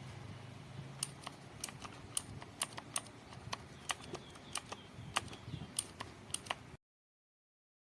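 Typing on a mechanical keyboard fitted with Outemu MX switches: irregular sharp key clicks, about three a second, stopping abruptly near the end.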